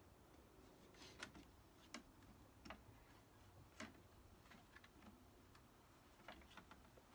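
Faint, scattered clicks and taps from hands working a Jeep Wrangler's third brake light free of its bracket on the spare-tire carrier.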